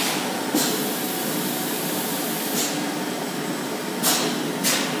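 EPS foam cup moulding machine running with a steady hiss, broken three times by short, sharp hissing blasts: once about half a second in and twice close together near the end.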